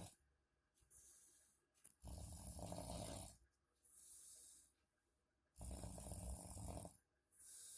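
Faint snoring in slow, regular breaths: two low snores about three and a half seconds apart, each followed by a short hissing breath.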